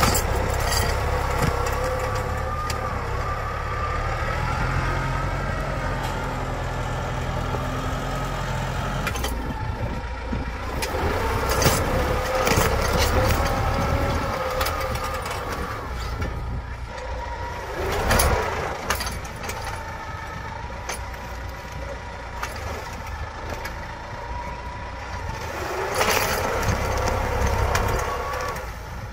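Tractor diesel engine working under load as it pulls a mounted disc plough through hard ground, its pitch wavering as the load changes. A few louder knocks and scrapes come from the plough discs striking clods and roots, the loudest about twelve and eighteen seconds in.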